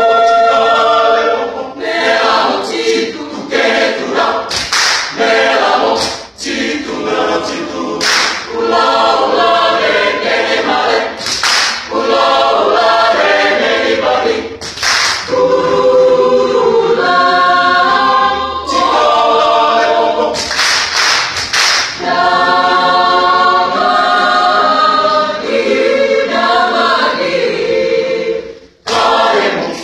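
Choir singing a cappella, with a brief break between phrases near the end.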